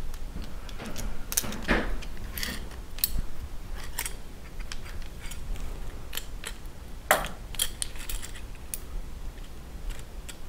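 Light metallic clicks and taps as a tube-flaring tool is handled and set on a 1/4-inch hydraulic line, pushed through its fitting to the stop. The clicks come irregularly, with a louder knock about seven seconds in.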